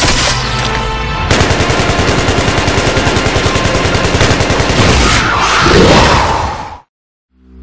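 Rapid automatic gunfire, about ten shots a second, starting over music about a second in. A rising sweep comes near the end, and then everything cuts off suddenly.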